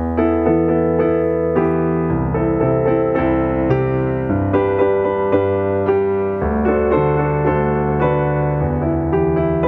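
Piano chords played on a keyboard, opening a worship song: sustained chords over a bass that moves to a new note every few seconds, starting suddenly after silence.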